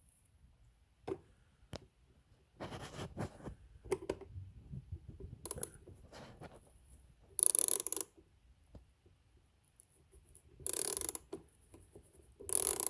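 A ratchet turning an Allen screw in a nut-sert in a Harley-Davidson Road Glide's plastic inner fairing: scattered clicks, then several short bursts of rapid clicking. The nut-sert spins in the plastic instead of gripping, which the owner blames on screws run in too tight and a hard jolt that broke its grip.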